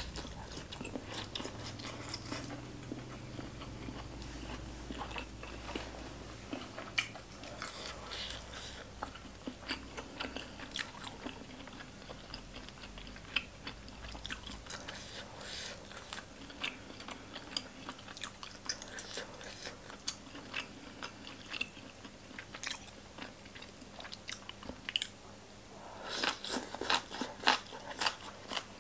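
Close-miked chewing and biting of boiled pork offal and green papaya salad: many small wet clicks and crunches, louder and busier near the end.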